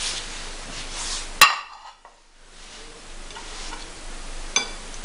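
Light handling of china plates on a table: a sharp click about a second and a half in, followed by a brief dropout, then a short ringing clink of a ceramic plate near the end.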